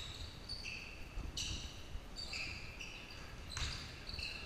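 Basketball sneakers squeaking on a hardwood gym court: a string of short, high squeaks, several a second, over the low rumble of players running in the hall.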